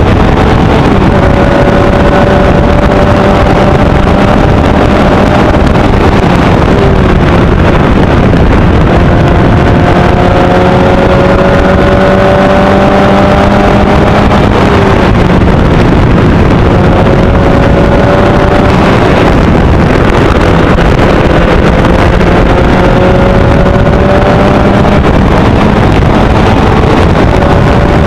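Formula Easter single-seater race car's engine running hard on track, its pitch climbing again and again and falling back between climbs as it shifts through the gears. Loud, with a dense rush of wind on the onboard microphone.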